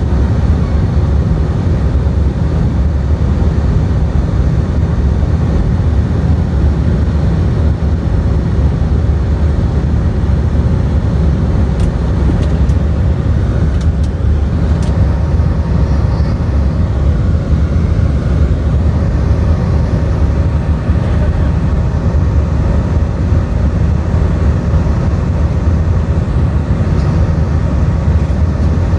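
Airbus A319's IAE V2500 jet engines running at high thrust, heard inside the cabin as a loud, steady low rumble with airflow noise, with a few light clicks or rattles near the middle.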